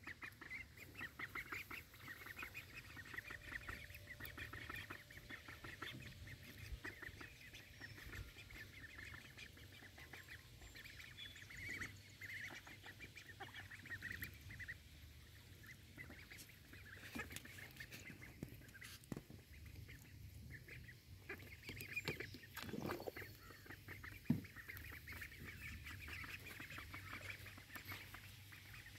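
Young Cayuga ducklings peeping and chattering over and over, with the clicks and splashes of bills dabbling in a shallow tub of water. A single sharp knock stands out about 24 seconds in.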